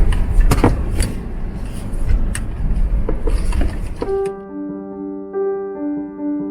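Background music: a dense, noisy stretch with sharp clicks and a heavy low rumble that cuts off about four seconds in, giving way to soft piano notes.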